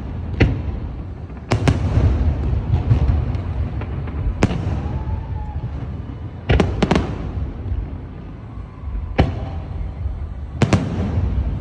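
Aerial fireworks shells bursting, a sharp bang every second or two, with a low rumbling echo and crackle carrying on between the bangs.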